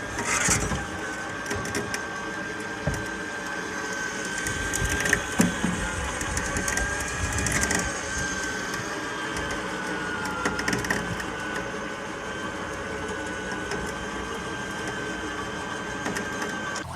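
Homemade band sawmill running on its 15 HP engine: a steady mechanical drone with a high blade whine that wavers slightly in pitch, and a few sharp clicks.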